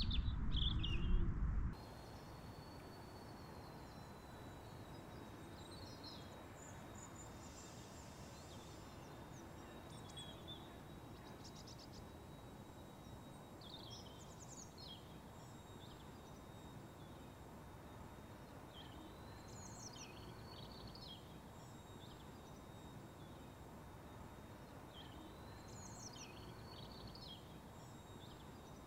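A songbird singing short phrases every few seconds, each a rising slurred note followed by a quick cluster of notes, over a steady faint outdoor background. A louder low rush, wind on the microphone, fills the first couple of seconds and cuts off suddenly.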